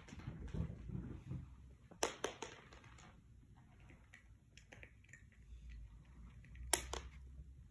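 Light, sharp clicks and taps on a hardwood floor from cats moving about: a quick cluster of clicks about two seconds in and a single louder click near the end, with soft low rustling at the start.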